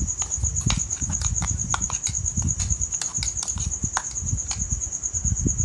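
A metal spoon clinking and scraping against a ceramic bowl as a wet marinade paste is stirred, in quick irregular taps. A steady, high, pulsing trill runs behind it.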